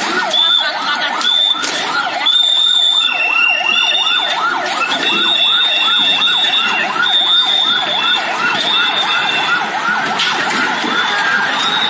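Police siren in a fast yelp, wailing up and down about three times a second without a break, from the armoured police vehicle among the riot police. Steady high tones come and go over it in short stretches.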